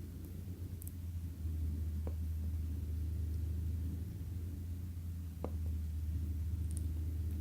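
Steady low hum, growing a little louder about a second and a half in, with two faint clicks about two seconds and five and a half seconds in from small screws or tools being handled.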